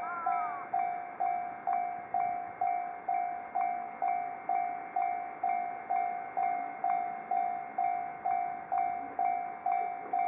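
Japanese railway level-crossing alarm: an electronic bell striking one tone a little over twice a second, each strike fading before the next. It warns that a train is approaching and the crossing is closing.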